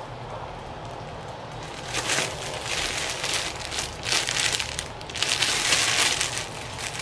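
Clear plastic bag around a folded muslin backdrop crinkling as it is handled, in uneven bursts: one about two seconds in, another about four seconds in, and a longer, loudest stretch near the end.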